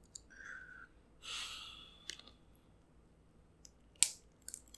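King crab leg shell being bent and cracked by hand, giving a few sharp clicks and cracks, the loudest about four seconds in. A short breathy hiss comes about a second in. The shell is resisting and not snapping cleanly.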